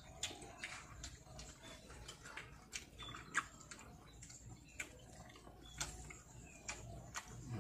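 Faint eating sounds of two people chewing food eaten with their fingers from plates, with many small irregular clicks and smacks.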